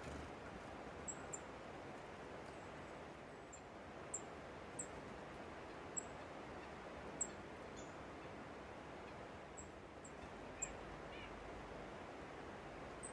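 Faint outdoor ambience: a steady low hiss with scattered short, very high bird chirps, about ten of them, and a faint bird call about eleven seconds in.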